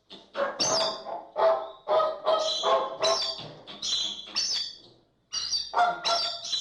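American flamingos calling, a rapid run of honking calls that overlap and repeat, with a brief pause about five seconds in before the calling resumes.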